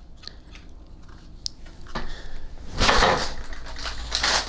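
Handling noises on a desk: a few faint clicks, then rustling and crinkling of packaging material that swells to a loud crunch about three seconds in and keeps crackling.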